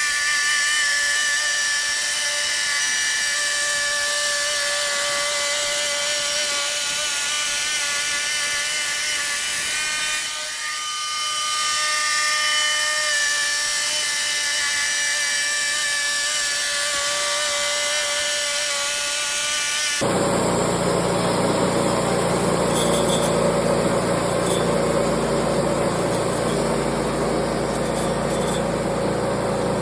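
Wood-Mizer band sawmill blade running through a spruce log, a steady whine with a brief dip about ten seconds in. About twenty seconds in it changes abruptly to a lower, steady engine running sound.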